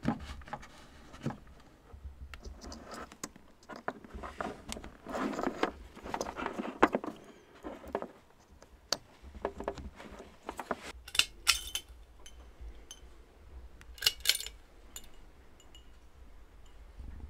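Plastic power connectors and their cables being handled and plugged in: scattered small clicks, rattles and clinks, with a few sharper clicks near the middle and later on.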